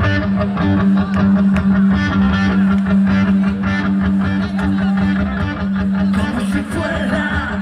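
Live rock band playing: electric guitars over a steady drumbeat, with one low note held underneath through most of it.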